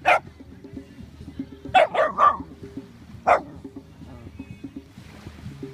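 A dog barking at a crab in short barks: once at the start, a quick run of three about two seconds in, then once more about a second later.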